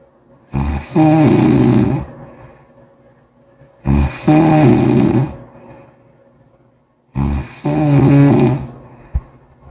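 A sleeping person snoring loudly, three wet, bubbling snores about three seconds apart, each about a second and a half long with a rattling, pitched buzz, and quiet breathing between them.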